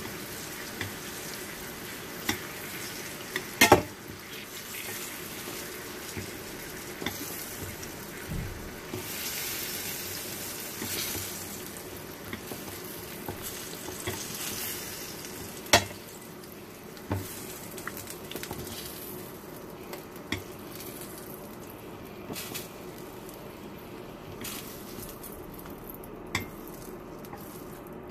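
Green bell pepper pieces sizzling steadily as they fry in butter in a metal skillet, with sharp clicks of long metal tweezers knocking against the pan and plate as pieces are lifted out. The loudest click comes about four seconds in and another strong one at about sixteen seconds.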